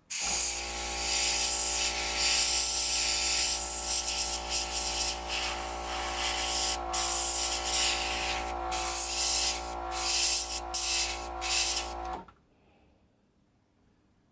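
Dual-action airbrush spraying paint with a steady hiss over the hum of its small air compressor, with a few sharper spurts of spray in the second half; it starts suddenly and cuts off after about twelve seconds.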